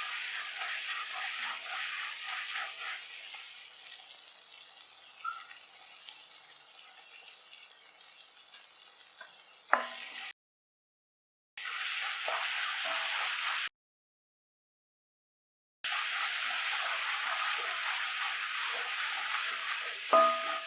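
Chicken curry sizzling in a pan. The sound comes in three short clips split by silent edits, with a sharp metal clink of a utensil against the pan about ten seconds in and again near the end.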